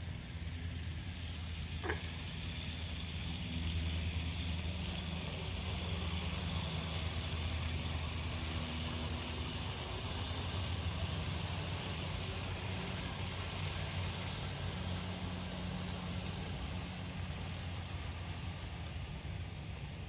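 Several JAKKS Pacific PowerTrains battery toy locomotives running together on plastic track: a steady whir of small electric motors with the wheels running over the track.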